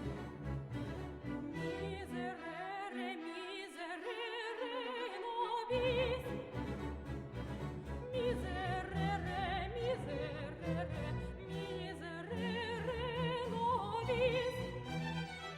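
Background music: an operatic singing voice with strong vibrato over orchestral accompaniment, the bass dropping out for a few seconds early on and returning about six seconds in.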